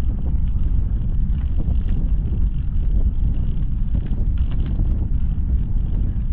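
Steady low rumble of wind buffeting a handlebar-mounted camera's microphone while riding a bicycle, mixed with the tyres rolling over a paved towpath and occasional faint ticks.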